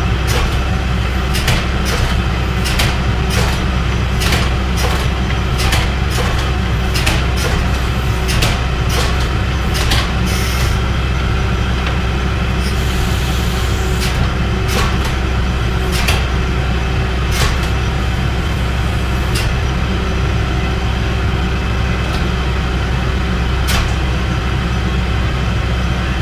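Forging machinery's electric motor and hydraulic pump running with a steady hum. Sharp clicks and taps of metal work come throughout, more often in the first half, and there are two short bursts of hiss near the middle.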